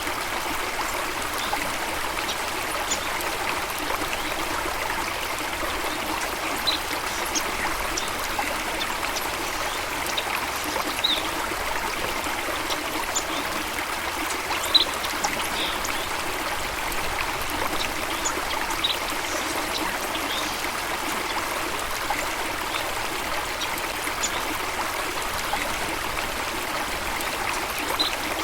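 Steady flowing water of a stream, with scattered brief high-pitched sounds through it, the loudest about fifteen seconds in.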